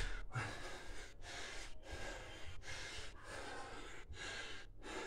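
Heavy, fast breathing of a man mid-way through a set of Navy SEAL burpees, panting in and out every half second or so. A soft thud of a landing on the floor comes right at the start.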